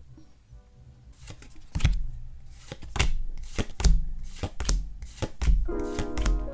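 Irregular sharp taps and knocks of trading-card packaging and cards being handled on a table, about one a second, with background music coming in near the end.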